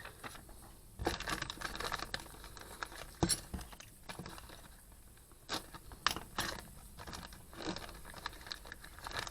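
Unboxing handling: paper and plastic packaging rustling and crinkling, with scattered light clicks and several sharper knocks as small metal parts and papers are moved about.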